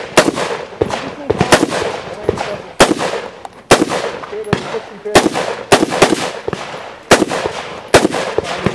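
Rifle fired rapidly at targets: a dozen or so sharp shots at uneven spacing, about one every half second to a second, each trailed by a short echo.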